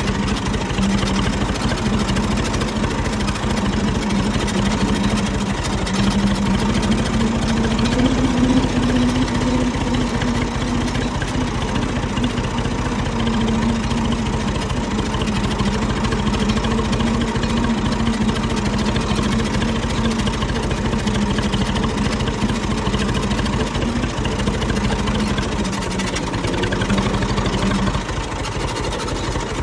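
Farm tractor's diesel engine running as the tractor drives, heard from the driver's seat. Its note rises a little about eight seconds in and drops near the end.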